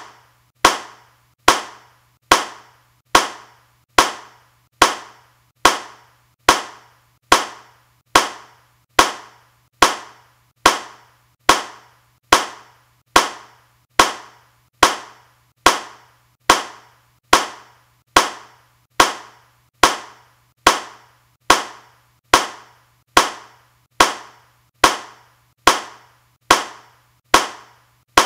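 Single hand claps repeated at an even pace, a little over one a second, each a sharp crack with a short decaying tail.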